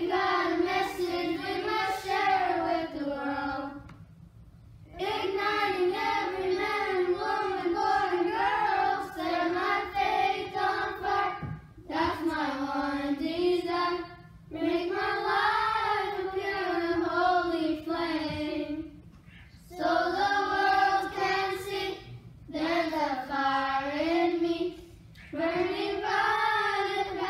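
A group of children singing a worship song together without accompaniment, in phrases broken by short pauses for breath.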